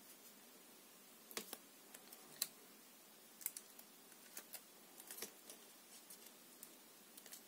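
Faint, scattered sharp clicks and crackles of a thin plastic sticker label and its backing film being handled as fingers peel the protective backing off.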